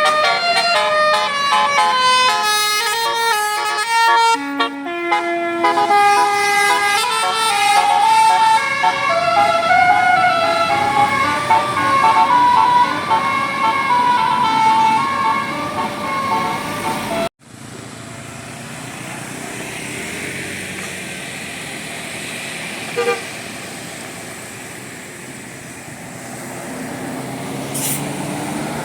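A bus's telolet Basuri musical air horn plays a quick melody of stepped notes for about 17 seconds, then cuts off abruptly. After that comes a steady rumble of vehicle engine and road noise.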